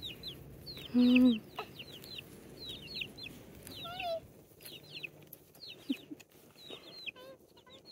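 Young chickens peeping: a steady run of short, falling chirps, with one louder, lower call about a second in.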